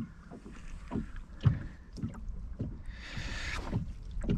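Irregular low knocks and thuds of gear being handled and shifted about in a small fishing boat, with a short rustle about three seconds in.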